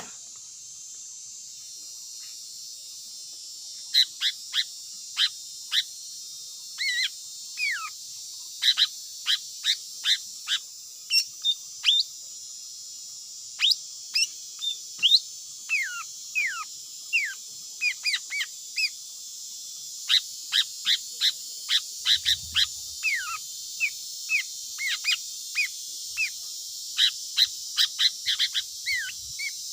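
A bird calling over and over in short, sharp whistled notes, singly and in quick pairs, about two a second, starting about four seconds in, over a steady high hiss.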